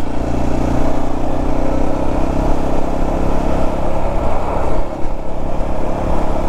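Motorcycle engine running as it is ridden along the road, with steady wind and road rush on the microphone; the level dips briefly about five seconds in.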